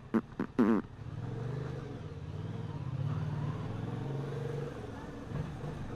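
A motor vehicle engine running steadily at low speed for a few seconds, then dropping away, with a brief knock shortly after. Just before the engine comes in there is a little humming.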